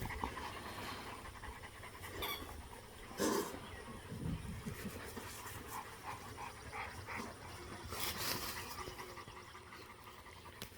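St. Bernard puppies panting, with a few short noisy bursts, the loudest about three seconds in and another about eight seconds in.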